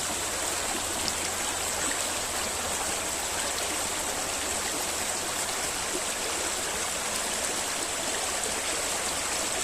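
Small river flowing: a steady, even rush of running water.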